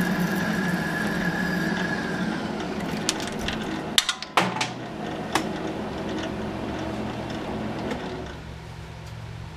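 Smithy Granite metal lathe turning at about 200 RPM while a parting tool cuts into the spinning metal workpiece, with a steady high tone from the cut over the first two seconds. Three sharp clicks come between about four and five and a half seconds in, then the lathe runs on more quietly, dropping again near the end.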